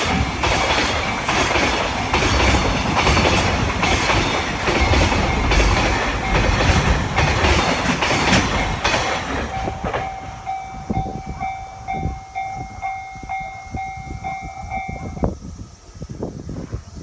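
A train passes over a level crossing, its wheels clacking rhythmically over the rail joints. As it clears, about ten seconds in, the crossing's alarm is heard ringing in steady repeated electronic dings, and it cuts off suddenly about fifteen seconds in.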